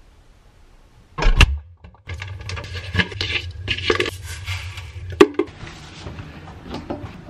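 Handling noise from loading a front-loading washing machine: a heavy thump about a second in, then rustling and clattering as a plastic stain-remover tub and packaging are handled and clothes are pushed into the drum, with a sharp click a little after halfway. A low steady hum runs underneath.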